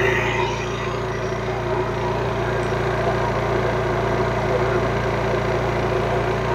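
Honda EU3200i inverter generator's GX130 fuel-injected single-cylinder engine running at a steady, even speed, a constant low hum.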